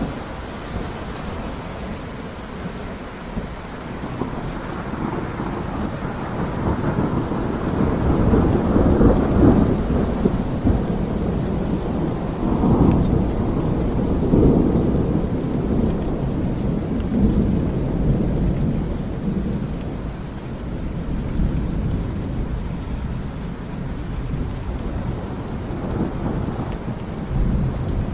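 Steady rain hissing under long rolls of thunder, which build to their loudest about a third of the way through and then ease off.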